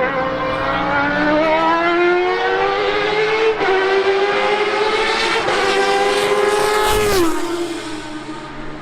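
Racing car engine at full throttle, its note climbing steadily for about seven seconds, then dropping sharply and fading as the car goes by.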